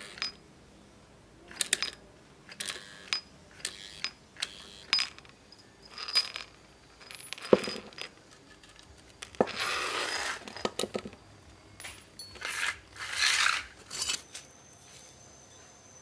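Steel bolts, nuts and washers clinking and rattling on a concrete floor as they are set down one after another, some hits ringing briefly. There are two longer scrapes of metal on concrete, about ten seconds in and again near the end.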